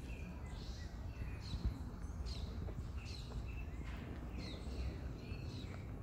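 Several birds chirping and calling in short, repeated phrases over a steady low rumble, with one brief bump about one and a half seconds in.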